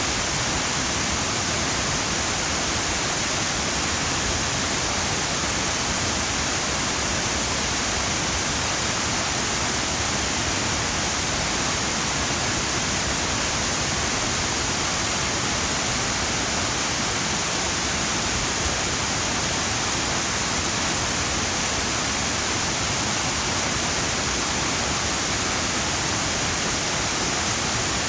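Waterfall roaring steadily, heard from the bottom of the falls: a constant, even rush of water with no breaks.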